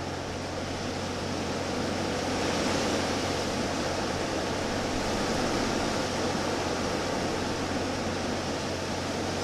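Steady rushing noise with a low, even hum underneath.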